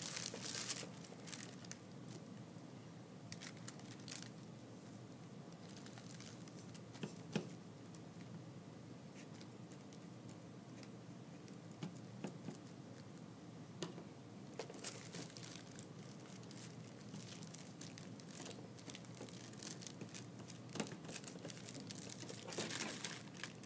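Tissue paper rustling and crinkling faintly as fingers smooth it down over a glue-coated wooden cut-out, with scattered light ticks. The rustling comes in short spells, busiest about fifteen seconds in and again near the end.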